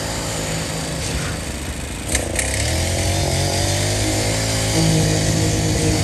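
Small engine of concrete-placing machinery running steadily with a buzzing drone, its pitch wavering briefly about two seconds in, where two sharp knocks sound.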